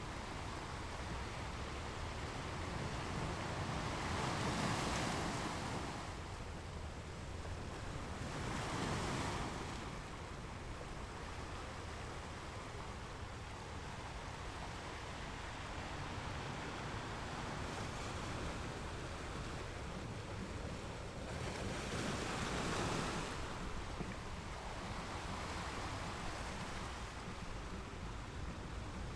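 Ocean waves washing over a shore, a continuous hiss of surf over a low rumble. The wash swells louder several times: about five seconds in, about nine seconds in, and again about twenty-three seconds in.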